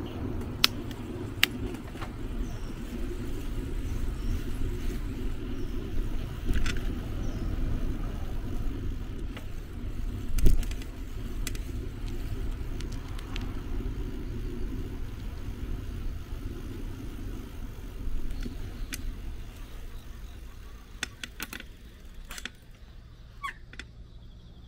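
A bicycle rides along a street, giving a steady low rumble of wind and road noise on the camera's microphone, with scattered sharp clicks and rattles. The rumble dies down over the last few seconds as the bike slows to a stop.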